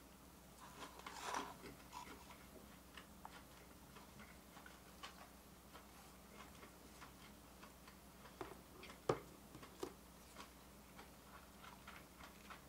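Faint, scattered clicks and taps of wooden chopsticks against a plastic bento box during eating, with a brief flurry of handling noise about a second in and one sharper click about nine seconds in.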